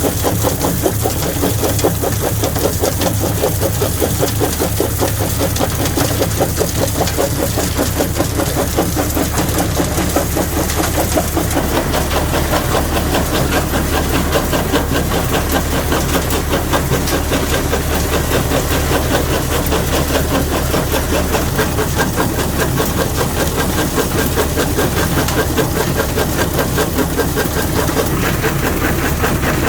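Heavy quarry rock-crushing machinery running steadily, its diesel engine giving a low hum with a fast, even pulse.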